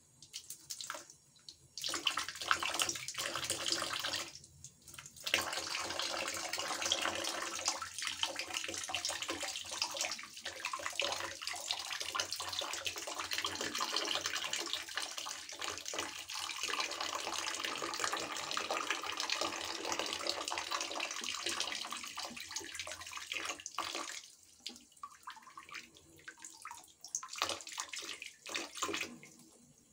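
Water from a shower running and splashing into a plastic bucket of water, a steady rush that breaks off briefly a few times, most often near the end.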